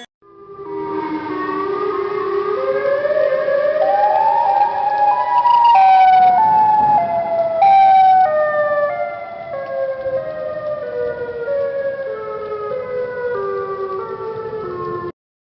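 Emergency alert siren tone climbing in pitch in small steps for about five seconds, then falling step by step and cutting off abruptly near the end.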